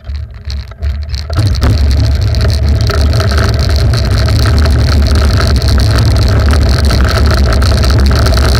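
Soapbox cart rolling fast downhill on asphalt, with no engine: the wheels rumble on the road and wind buffets the onboard camera's microphone. A few clicks and knocks come first as it leaves the start ramp, then the rumble swells a little over a second in and stays loud and steady as the cart picks up speed.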